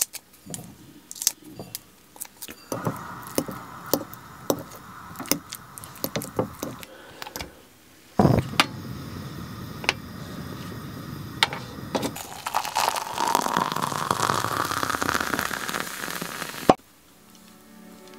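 Breakfast being made on a gas hob: an egg is cracked into a ceramic bowl with a run of sharp clicks and taps. Then a gas burner hisses steadily under a stovetop kettle as it heats, with a tone that rises slowly over the last few seconds before the sound cuts off suddenly.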